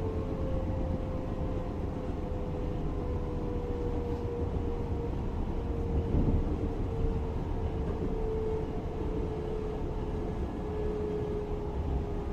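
Class 425 electric multiple unit running, a steady rumble under the whine of its electric traction drive, whose single tone slowly falls in pitch. A brief thump comes about six seconds in.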